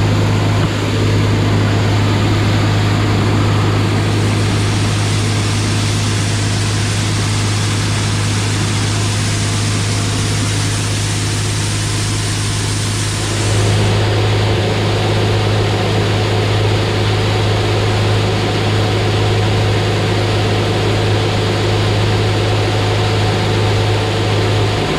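Tractor engine running a PTO-driven grain auger as soybeans are augered up into a grain bin: a steady, loud engine hum under a hiss of running machinery and grain. About 13 seconds in, the high hiss drops away and the engine hum grows louder.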